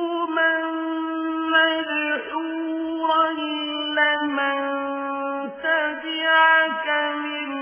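Melodic Qur'an recitation: a single voice chanting Arabic verses, holding long drawn-out notes and breaking them with short ornamented turns in pitch.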